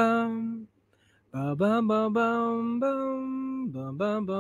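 A man singing a wordless tune unaccompanied: one note fades out about half a second in, then after a short pause come long held notes with brief slides up and down between them.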